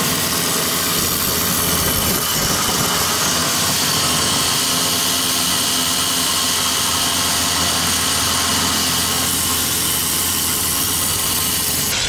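Cordless reciprocating saw cutting through a bolt under a truck. It runs loud and steady without a break, with a harsh, hissing edge.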